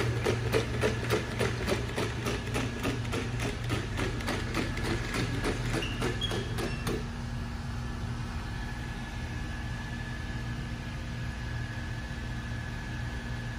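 Quadruped robot dog walking on a hard tile floor: its feet tap evenly about three times a second over a mechanical whir. The steps stop about seven seconds in, leaving a steady electric hum with a faint high tone.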